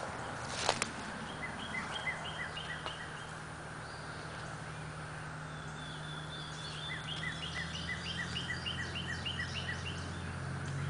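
A songbird singing two runs of quick, evenly repeated notes, a short one about a second and a half in and a longer one from about seven seconds, over a steady low hum. A brief rustle comes near the start.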